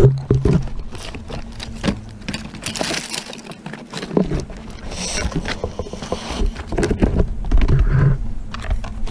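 Metal tool scraping and knocking against rotten wood in a tree hollow that holds a European hornet nest, with irregular knocks and scrapes over a steady hum of hornets buzzing.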